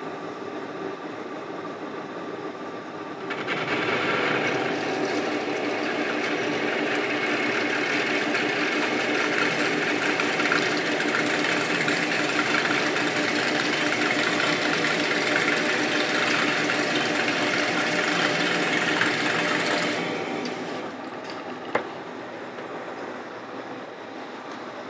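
Monarch engine lathe taking a heavy 0.300-inch facing cut in steel with a carbide insert, just under 300 RPM. The spindle runs steadily, then about three seconds in the tool bites and a loud, dense cutting noise holds for about sixteen seconds before falling back to the lathe running without load. The machine handles the cut with no problem.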